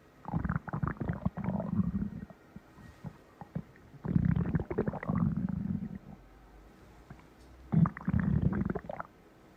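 Stomach growling, heard up close: three rumbling growls, the first two about two seconds long and the last about a second, with quiet gaps between them.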